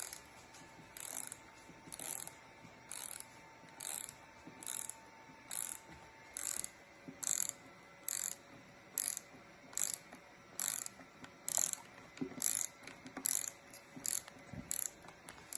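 A 72-tooth mini ratchet handle is worked back and forth, its pawl clicking over the teeth in short runs. About seventeen strokes come at a steady rhythm, a little faster than one a second.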